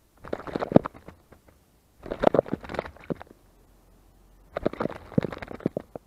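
Eurasian jay bathing in a shallow bin-lid bird bath: three bouts of quick splashing, about two seconds apart, each lasting around a second, as it beats the water with its wings and body.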